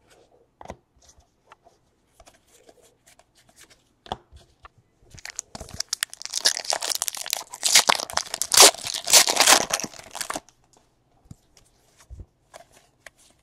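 Wrapper of a pack of Donruss basketball trading cards being torn open and crinkled: a run of loud ripping and crackling from about five to ten seconds in, with light handling clicks before and after.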